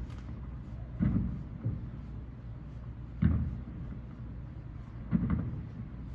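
Aerial fireworks shells bursting: four low, dull booms a second or two apart, one of them weaker, each dying away in a short rumble.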